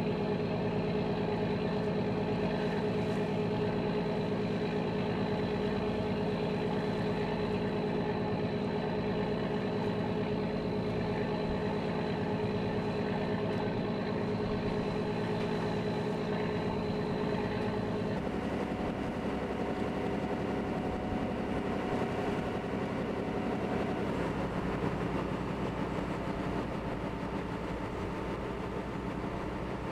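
Boat engine running steadily, heard from on board, a droning hum with a steady pitched note. About eighteen seconds in, its note changes.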